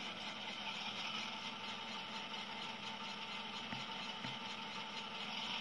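Tsunami 2 sound decoder in an HO scale GP7 model locomotive playing a diesel prime mover idling steadily through the model's small speaker, the locomotive standing still.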